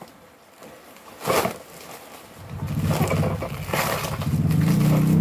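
Plastic bag wrapping crinkling as it is pulled off a cardboard box, in short bursts. From about halfway a low engine drone comes in and grows steadily louder.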